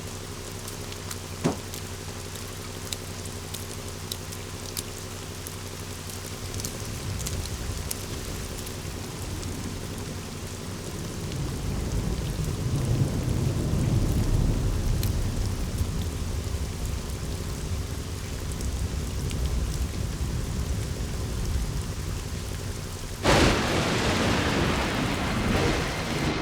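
Steady rain with low rolling thunder that swells about halfway through, then a sudden loud burst of thunder near the end.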